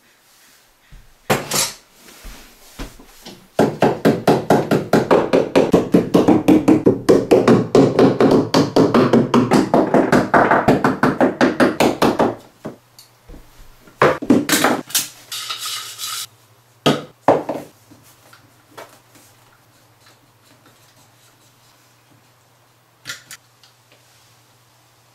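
A quick, steady run of hammer strikes on wood, about five a second for some nine seconds, with a few scattered knocks and taps before and after.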